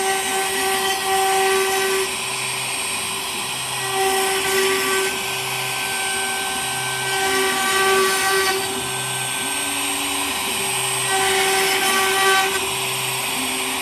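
Woodworking CNC engraving machine running: a steady whine with higher tones that cut in and out every second or two, over a broad rushing noise.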